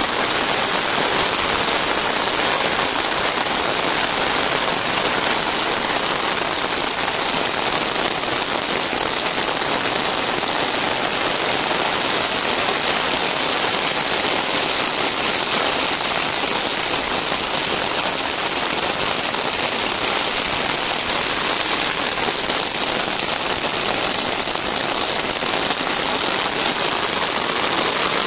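Steady rain falling on wet ground and standing water.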